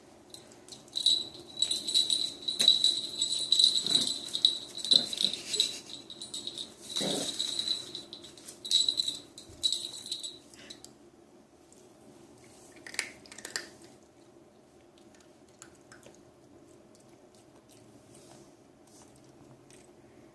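A small bell jingling in quick, uneven shakes as a puppy plays, for about ten seconds, then stopping. A few faint knocks follow.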